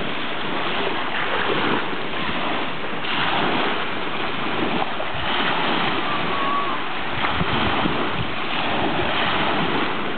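Small waves breaking and washing up over a pebble beach at the water's edge, the wash swelling and falling back every two seconds or so.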